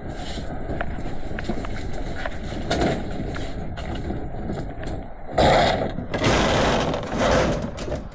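Scrap metal being handled and moved: small clicks and knocks, then several loud scraping, rustling noises in the second half, over a steady low rumble.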